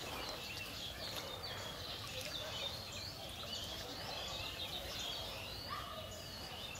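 Birds chirping and calling over a steady outdoor background hiss, with many short high chirps throughout and a few lower calls near the end.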